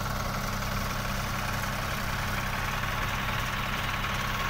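Diesel tractor engines running steadily at low revs, an even low drone with no change in pitch.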